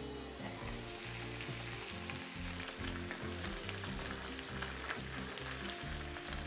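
Gyoza sizzling and crackling in a frying pan as the last of the steaming water bubbles off, with sesame oil drizzled over them to crisp the bottoms. The crackling gets busier a couple of seconds in.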